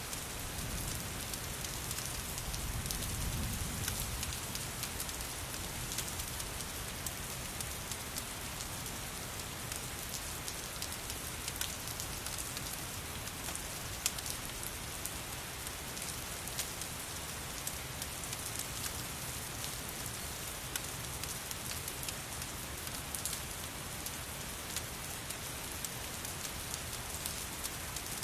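Steady rain hissing, mixed with a wood fire crackling: scattered sharp pops and ticks over the rain. A low rumble swells briefly a few seconds in.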